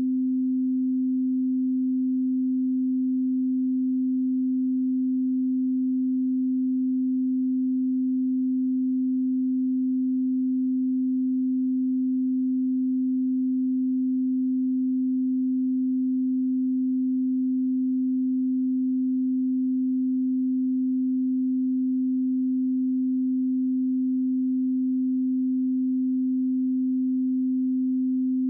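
Pure 258 Hz sine-wave test tone, one steady low hum with no overtones, unchanging in pitch and level.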